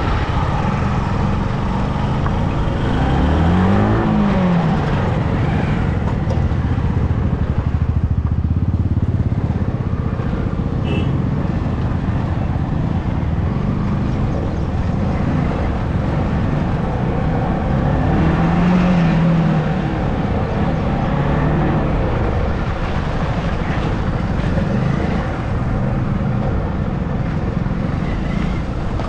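A motorcycle being ridden on the road: its engine runs steadily under wind and traffic noise. A pitch swoops up and back down about four seconds in, and again more gently near the middle.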